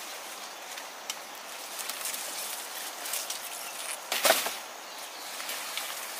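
Dry sugarcane leaves and stalks rustling and crackling as cane is handled, with one loud, sharp crack of a cane stalk about four seconds in.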